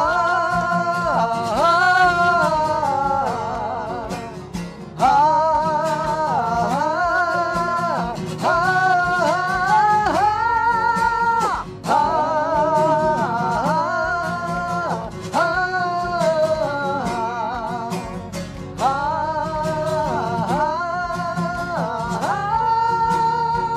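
Live male voices singing a high, wordless 'ah-ah-ah' refrain in repeated phrases that climb and hold with vibrato, over strummed acoustic guitar.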